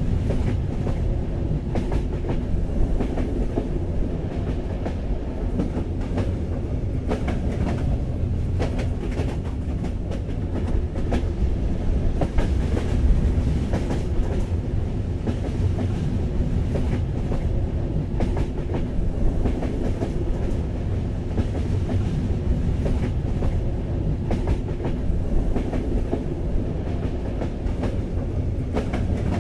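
Passenger train running, heard from inside a carriage: a steady low rumble with frequent irregular clicks and knocks from the wheels on the track.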